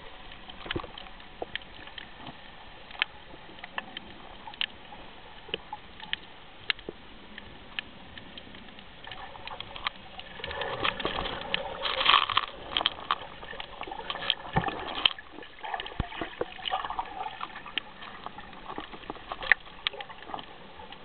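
Water sloshing and splashing around a snorkeller's camera, with scattered sharp clicks throughout. The splashing gets louder from about ten seconds in for a few seconds.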